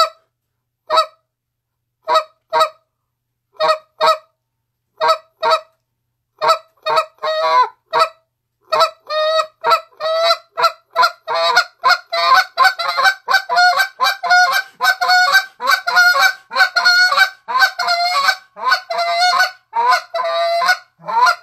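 Goose call blown in a run of spit notes. It opens with slow, separate notes about a second apart, then speeds up into rapid, near-continuous calling. The sequence imitates a goose standing, getting ready to take off, then taking off and flying.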